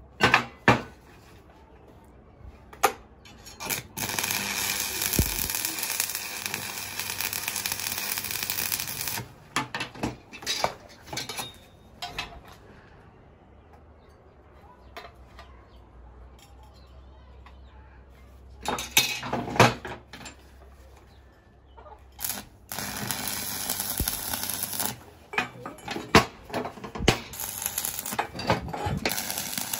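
Hammer strikes clinking on steel angle-iron pieces, with stretches of steady crackling from stick (arc) welding as the pieces are tacked together. There is a quieter spell in the middle.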